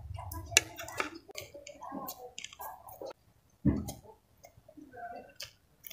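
Close-up eating sounds: fried instant noodles being slurped in, then chewed, with many short wet mouth clicks and lip smacks. A single low thump comes about three and a half seconds in.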